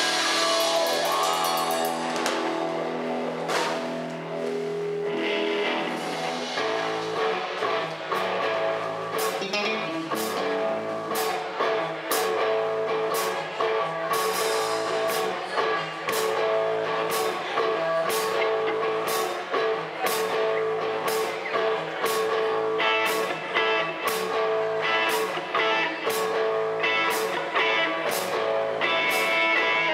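Live rock band playing an instrumental passage: electric guitar and bass guitar, with drums and cymbals keeping a steady beat that firms up several seconds in.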